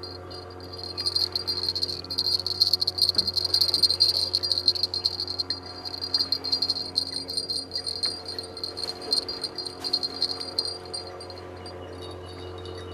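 A singing insect, its fast-pulsing, high-pitched trill starting about a second in and fading out near the end, over a steady low hum.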